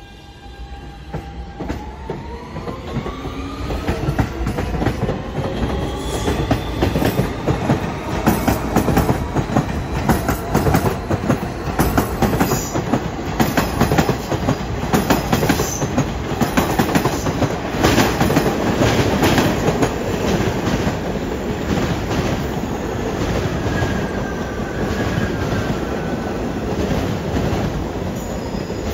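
Siemens-propulsion R160 subway train accelerating away from the platform: its traction motors whine in several rising tones over the first few seconds, then the wheels clack and rumble over the rail joints as the cars pass and pull away.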